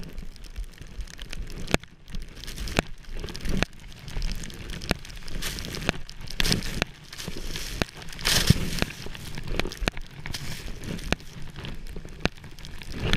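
Skis swishing through deep powder snow in a series of turns, each turn a surge of hiss, with scattered sharp clicks and crackles.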